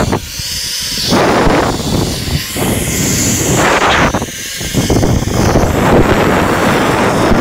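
Loud wind rushing and buffeting on a handheld camera's microphone during a fast zipline descent, swelling and dropping in several gusts.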